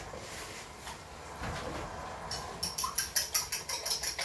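A fork beating eggs in a bowl. Quiet at first, then quick, even clicking of the fork against the bowl starts about halfway through, about five strokes a second.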